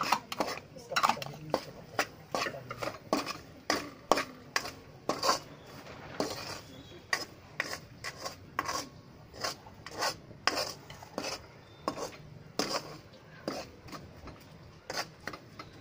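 Metal spoon scraping and knocking against a metal kadhai while spice masala (red chilli powder, salt, turmeric) is stirred and fried in oil, about two strokes a second.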